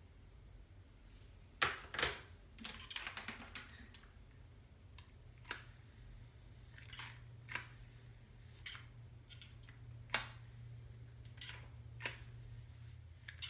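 Light scratchy clicks of a comb and hair-styling tool working through short hair: two sharper strokes about one and a half to two seconds in, then a quick run of small ticks, then single ticks every second or so. A low steady hum sits underneath.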